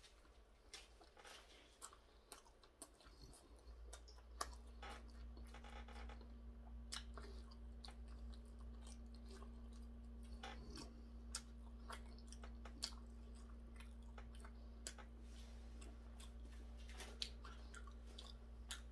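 Faint chewing and mouth clicks of a person eating a steamed dumpling with his hands, a bite near the start and then steady chewing. A faint steady hum comes in about four seconds in.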